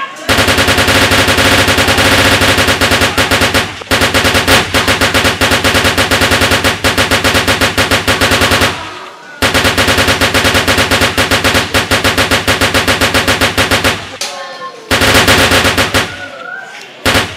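Automatic machine-gun sound effect: long bursts of rapid fire, pausing briefly about nine seconds in and again around fourteen seconds, with one short burst near the end.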